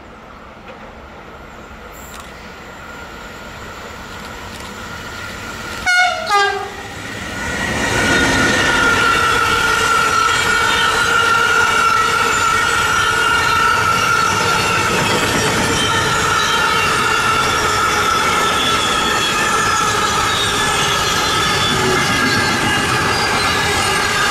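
A train approaches, getting steadily louder, and sounds two short horn blasts about six seconds in. It then passes close by with loud, steady running noise and high whining tones.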